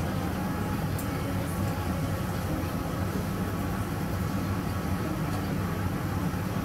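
Steady low hum of background noise, with a faint click about a second in.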